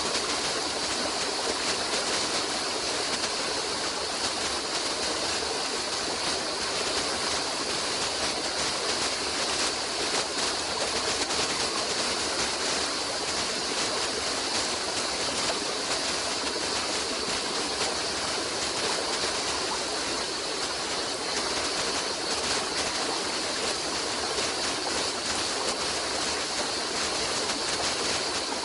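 Running water of a stream, a steady unbroken rush with no change in level.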